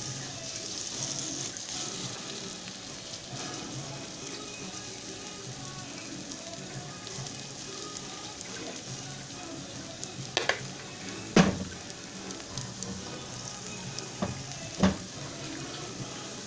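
Oil sizzling steadily in a frying pan as grated young squash (ayote) batter fries into thin fritters. In the second half a spoon knocks sharply against the pan four times, the loudest about eleven seconds in.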